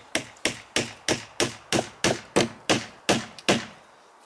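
Claw hammer driving the last nail through a metal fence panel bracket into a timber post: a steady run of about a dozen sharp strikes, roughly three a second, that stops shortly before the end as the nail goes home.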